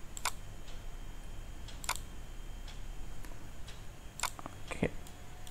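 A few isolated clicks from a computer keyboard and mouse, about four spread out, over a faint steady hum.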